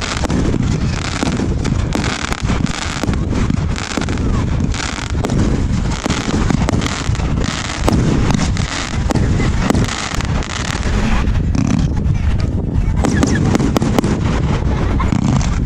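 Fireworks display firing continuously: a dense, unbroken rattle of bangs and crackles over a low rumble.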